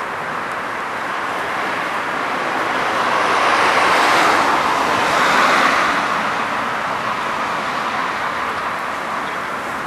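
A road vehicle passing by: steady road noise that swells to a peak about four to six seconds in, then fades.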